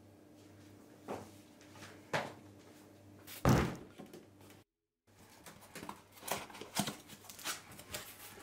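Objects set down on a wooden table: a few separate knocks, the loudest a heavy thud about three and a half seconds in as a cardboard box is put down. After a brief drop-out, the flaps of the cardboard box are handled with light rustling and small taps.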